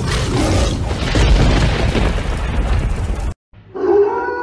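A long, deep, noisy boom of a cinematic logo sting, cutting off suddenly about three and a half seconds in. After a short silence a wolf howl begins: a single held note.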